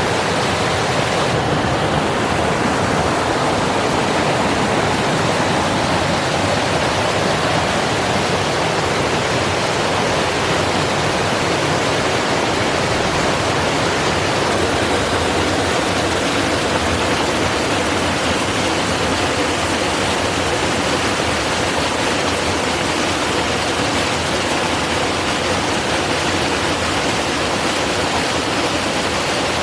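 A multi-cascade waterfall rushing steadily, its water falling over several drops.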